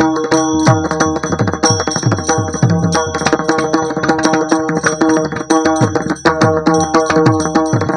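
Kirtan accompaniment without singing: fast hand-drum playing, with deep bass strokes that drop in pitch, over sustained harmonium chords and the steady ring of small hand cymbals.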